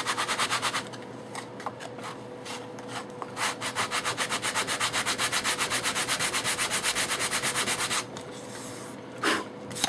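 Sanding block rubbed back and forth over balsa wood to smooth a rough glue joint. There is a quick run of short strokes at the start, then a steady fast run of about six strokes a second from about three and a half to eight seconds in. A single short knock comes near the end.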